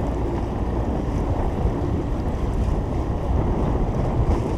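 Steady low rumble of wind buffeting the microphone, with a faint hum underneath.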